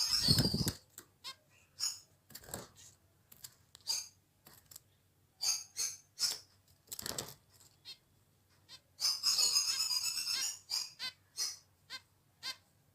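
Small pet finches chirping in short, scattered high calls, with a stretch of rapid chattering about nine seconds in. A thump sounds right at the start.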